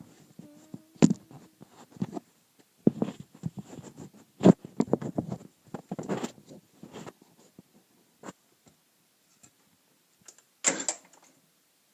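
Scattered clicks, knocks and short rustling bursts of handling noise around a riding lawn mower, with no engine running.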